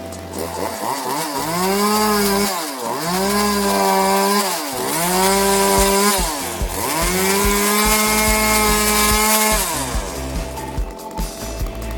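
Two-stroke chainsaw revved to full throttle four times, holding high for one to nearly three seconds each time and dropping back to a rough idle between, likely cutting into spruce wood.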